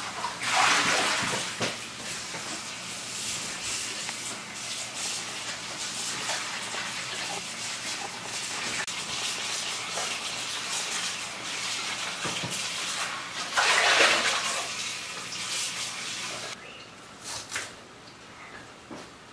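Kitchen tap running into a plastic bowl in a sink while it is rinsed, swelling louder twice. The water stops near the end, followed by a few knife taps on a wooden cutting board.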